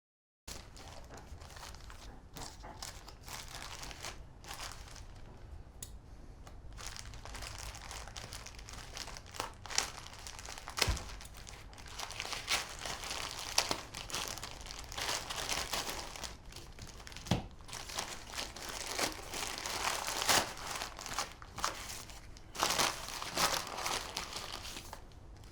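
Packaging being handled and unwrapped: continuous crinkling and crumpling with sharp crackles and occasional tearing, starting about half a second in after silence.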